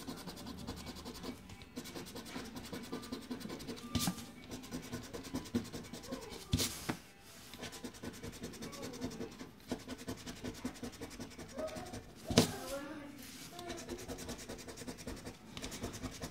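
A coin scratching the latex coating off a paper scratch-off lottery ticket: a fast, continuous rasping rub, broken by a few sharper clicks of the coin against the card.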